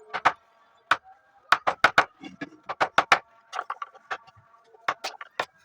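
Irregular sharp knocks, two or three a second and some in quick pairs, over a faint steady hum: hand tools striking wood.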